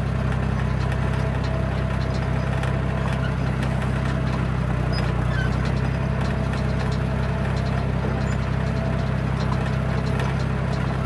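John Deere bulldozer's diesel engine running at a steady speed, with faint light clicks over it.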